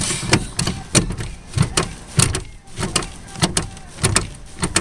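Toyota Camry brake pedal pumped rapidly by a sandaled foot: repeated clacks and thuds, in quick pairs about every half second as the pedal goes down and springs back. The caliper pistons are being pumped back out against freshly fitted pads.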